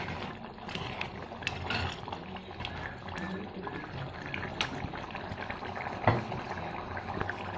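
Fish curry simmering in a clay pot while a steel spoon stirs it: steady bubbling and sloshing of the liquid, with a few sharp clinks of the spoon against the pot, the loudest about six seconds in.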